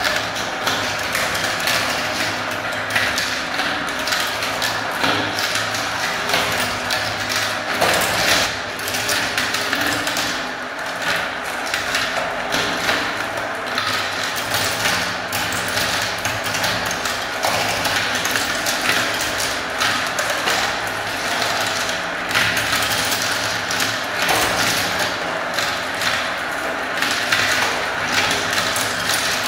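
Many small plastic balls rolling and swirling around clear plastic funnels of a marble run and dropping through the tubes, a steady dense rattle of overlapping clicks.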